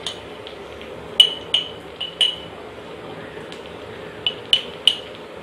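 About seven short, ringing clinks of kitchen utensils, in two quick groups, one about a second in and one near the end, over the faint steady sizzle of onions frying in oil in a clay pot.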